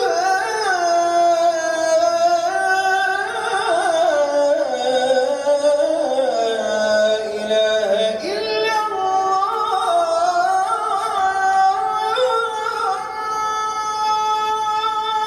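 The Islamic call to prayer (ezan) chanted by a single voice, continuing the 'Eşhedü en lâ ilâhe illallah' line in long, ornamented melismatic phrases with held notes and slow pitch glides. It breaks off abruptly at the end.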